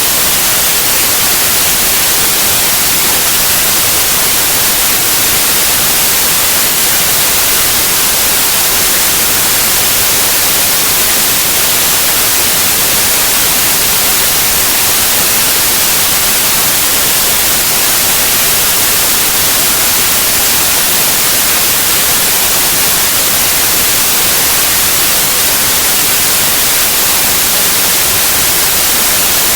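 Steady, loud white noise: an even, unchanging hiss, strongest in the high end, with no other events.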